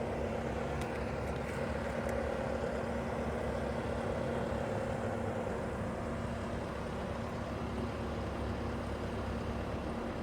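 Bobcat T740 compact track loader's diesel engine running steadily at an even pitch.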